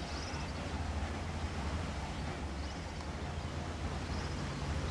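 Outdoor background on a golf course: a steady low rumble under an even hiss, with faint bird chirps three times.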